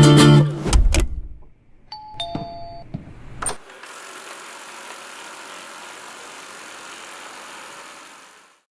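Guitar music ends, then a two-note descending electronic chime sounds, followed by a click. After that comes the steady whirring hiss of a eufy RoboVac 11S robot vacuum running, which fades out near the end.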